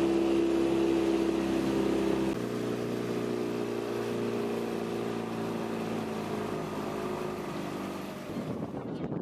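A small open motorboat's engine runs steadily under way. Its note changes abruptly about two seconds in. Near the end the engine sound stops and rough wind noise on the microphone takes over.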